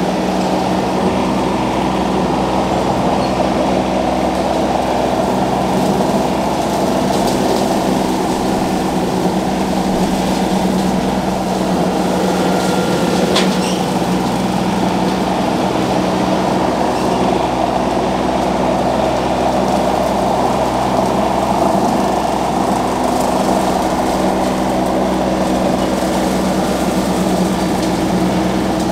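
RK 37 compact tractor's diesel engine running steadily under load while it pulls a PTO-driven rotary cutter (brush hog) mowing through grass.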